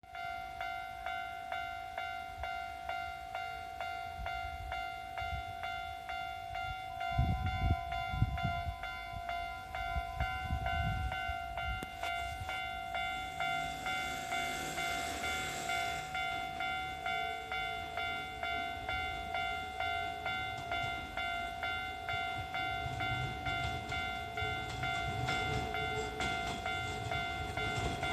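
Japanese railway level-crossing alarm ringing its steady repeating electronic clang, a little over once a second, while a train passes over the crossing. Heavy low thumps of the train come about seven to eleven seconds in, and a rush of noise about halfway through.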